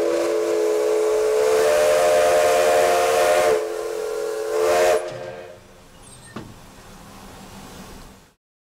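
Steam locomotive #25's whistle, pulled from the cab by its cord: a chord of several tones over steam hiss, one long blast of about three and a half seconds, then a shorter second blast.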